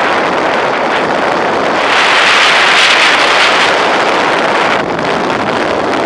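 Wind rushing over the microphone of a camera mounted on the wing of a radio-controlled Duo Discus glider in flight. The rush swells louder and brighter about two seconds in, then falls back near five seconds.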